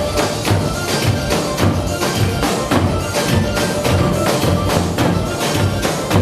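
Upbeat traditional-style dance music with a steady, fast percussion beat and a sustained melodic line.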